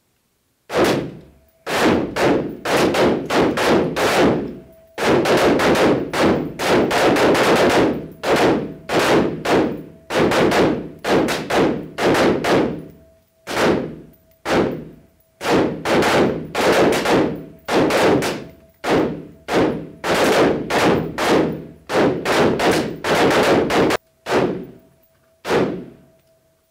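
Several shooters firing AR-type carbines at once in an indoor range: dozens of overlapping, unsynchronised rifle shots, each with a hard echo off the walls, with brief lulls and a few last shots near the end. It is slow aimed fire, five rounds per target, from a whole firing line.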